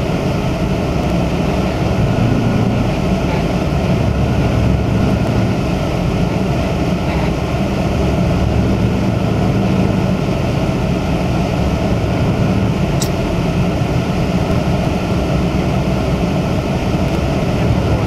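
Steady low engine and road noise heard from inside a car's cabin as it drives along a snow-covered street.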